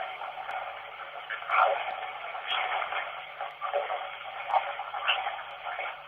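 Running water making a steady rushing hiss with uneven swells, used as background noise for a spirit-voice recording.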